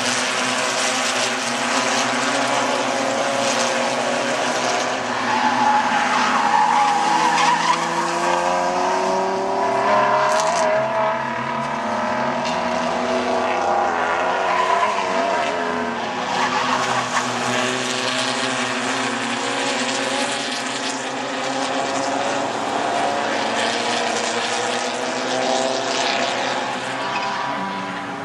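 Racing car engines running hard on a circuit, their pitch rising and falling as the cars accelerate and brake, with tyres squealing and skidding through the middle stretch.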